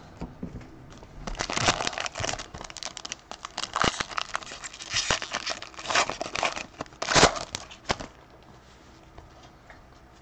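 A baseball-card pack's wrapper being torn open and crinkled by hand: a run of crackling rustles and tears from about a second in, the loudest tear near the end, stopping about two seconds before the end.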